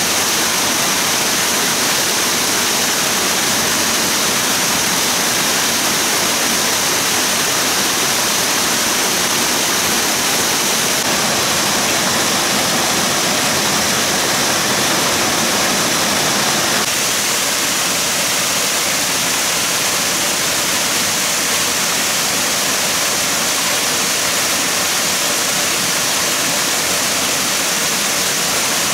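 Rushing water running steadily: a continuous loud hiss with no let-up.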